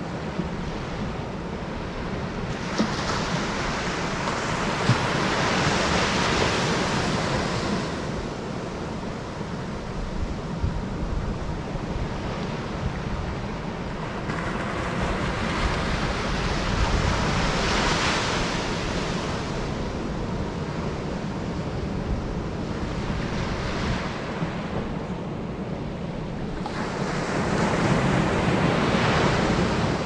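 Surf breaking and washing up a sandy beach, swelling three times as successive waves come in, over a steady low rumble of strong wind buffeting the microphone.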